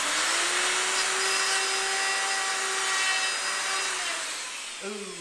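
Wood router coming up to speed with a rising whine, then running steadily while cutting into wood. After about four seconds it is switched off and winds down, its pitch falling near the end.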